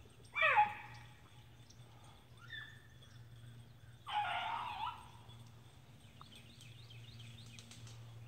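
Beagles baying on a rabbit's trail: separate drawn-out bawls that fall in pitch, the loudest just under a second in and a longer one about four seconds in, with a fainter one in between.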